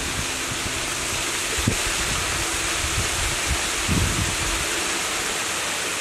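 Waterfall pouring into its plunge pool: a steady, even rushing hiss, with a couple of soft low thuds about two and four seconds in.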